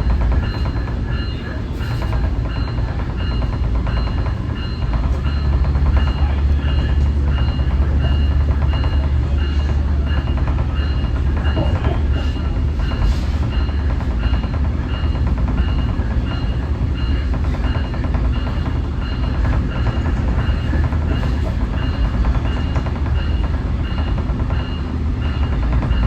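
SMART Nippon Sharyo diesel multiple unit's bell ringing steadily, about two strikes a second, as used in place of the horn at quiet-zone railroad crossings. Under it the train runs with a low rumble that gets louder a couple of seconds in.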